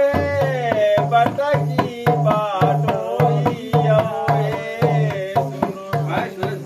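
A two-headed barrel hand drum played in a steady beat, low strokes about twice a second with sharper slaps between, under a voice singing a Tharu folk song in long, wavering notes.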